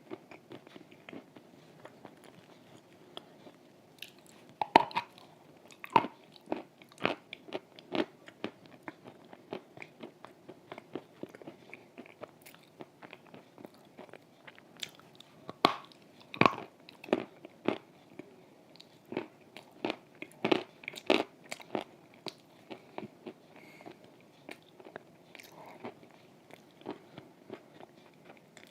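Close-up crunching and chewing of soaked chalk: irregular sharp crunches, the loudest bites about five seconds in and again around sixteen and twenty-one seconds.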